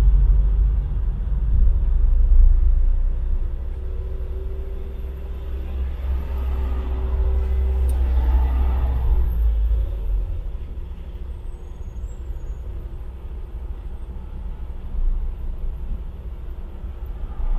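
Low, steady rumble of a car's engine and tyres heard from inside the cabin while driving in slow city traffic, easing off a little past the middle, with a brief swell of noise about eight seconds in.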